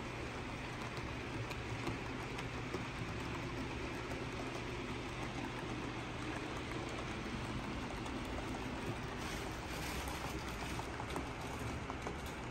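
HO scale model trains rolling along the layout's track: a steady, even rattle of small wheels on rail, with a low hum underneath.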